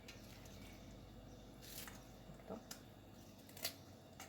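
A few faint, sharp clicks of a knife cutting small peaches, slicing the soft flesh away from the stone.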